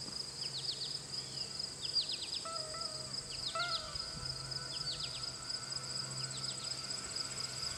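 Summer meadow ambience: insects trill steadily and high, while birds give short falling chirps in quick groups of two to four, about once a second. A couple of lower whistled notes come about three seconds in, over a faint low hum.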